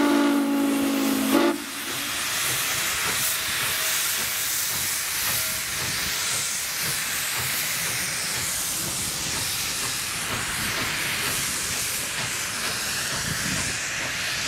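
Norfolk & Western steam locomotive whistle sounding one steady chord that cuts off sharply about a second and a half in. Then steam hisses steadily from the locomotive.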